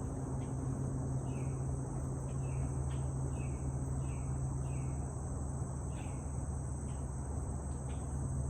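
Steady, high-pitched chorus of crickets and other insects over a low, constant hum of highway traffic. A run of short falling chirps, about two a second, comes in about a second in and stops around six seconds, with one more near the end.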